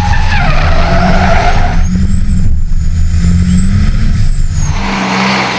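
An 1100 bhp racing semi truck's engine running hard, its pitch shifting up and down, with tyres squealing and sliding over the first couple of seconds. A thin high whistle rises and falls in the middle.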